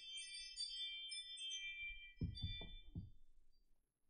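A bell-like metallic ding that rings on and fades away over about two and a half seconds, followed by four dull low knocks in quick succession a little after two seconds in.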